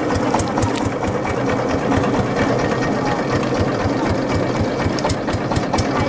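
Long-tail boat engine running steadily while the boat is under way, with a rapid, even knock.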